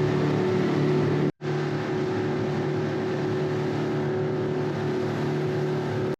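Boat engine running steadily underway, a constant hum with wash noise, broken by a brief cut to silence about a second in.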